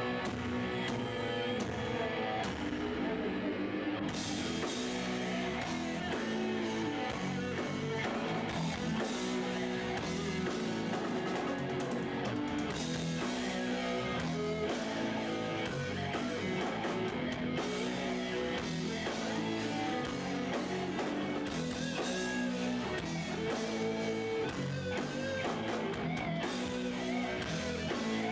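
Live rock band playing an instrumental passage, led by electric guitar over a drum kit, at a steady level.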